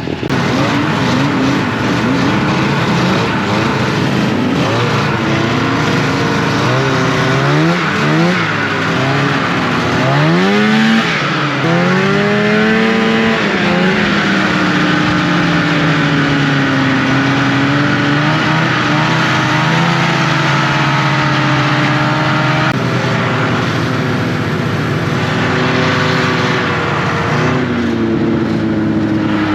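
Snowmobile engine running loudly, revved up and down several times in quick swings, then held at a fairly steady speed.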